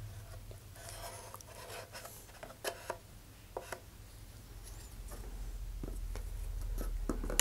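A wooden stick scraping and tapping inside a cardboard body tube as epoxy is spread along the inner joints, giving faint scratching with a few sharp little clicks midway. Near the end there is a low rumble as the tube is handled.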